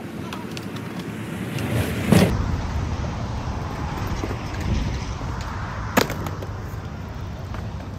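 Skateboard wheels rolling on a concrete skatepark surface, a steady low rumble, with a heavy thump about two seconds in and one sharp board clack about six seconds in.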